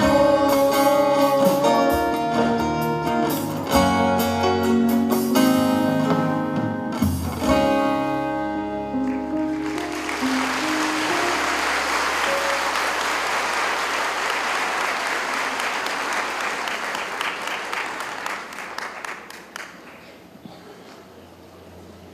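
A song with guitar accompaniment ends about nine seconds in. Audience applause follows for about ten seconds and dies away.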